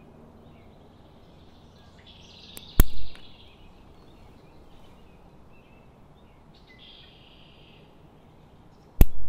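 Two sharp snips of small scissors cutting monofilament fishing line, about six seconds apart, as the tag end and excess line are trimmed off a freshly tied knot.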